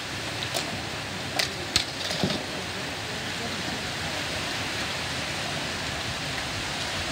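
Ball hockey play: four sharp clacks of sticks and ball in the first two and a half seconds, over a steady hiss of background noise.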